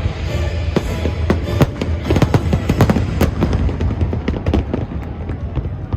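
Fireworks going off in quick succession, a dense run of cracks and bangs through the middle, over music.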